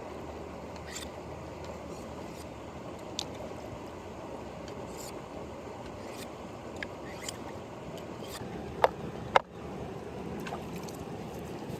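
Steady rush of a flowing river, with scattered light clicks and two sharp, louder knocks a little over half a second apart about nine seconds in.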